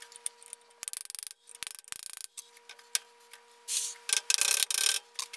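Gears from a Vernon lathe's gear cone being worked by hand off their keyed shaft, metal on metal. Quick ticking about a second in, then scraping and rubbing as the gears are slid and fussed out through the housing.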